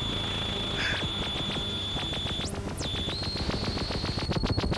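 Synthesizers playing deliberately harsh noise: a steady high-pitched whine over a rough low drone. Near the middle the whine sweeps up and back down. Near the end it starts pulsing rapidly, about eight times a second.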